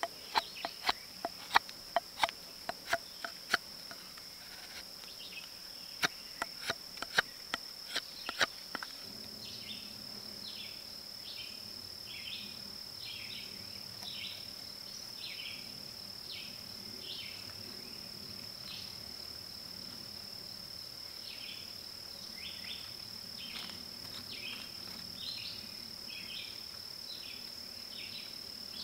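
Steel knife shaving down a handle in a quick series of sharp scraping clicks, stopping about nine seconds in. Under it a steady high insect drone of crickets runs throughout, joined by short repeated chirps about once a second after the carving stops.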